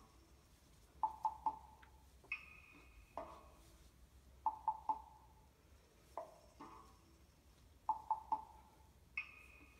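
Quiet music with a repeating pattern: three quick, ringing notes followed by a higher held note, coming round about every three and a half seconds.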